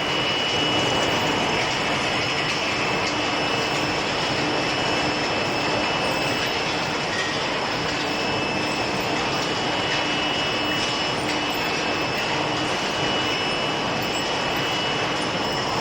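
Steel ball hot-rolling line with its induction heating furnace running: steady, even industrial machinery noise with a constant high-pitched whine over it.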